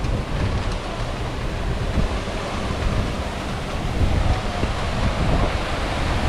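Steady rushing noise with wind buffeting the microphone in irregular low rumbles.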